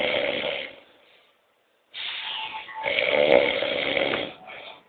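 A man snoring loudly in his sleep: one snore fades out about a second in, then a longer, louder snore starts about two seconds in, followed by a short extra burst near the end.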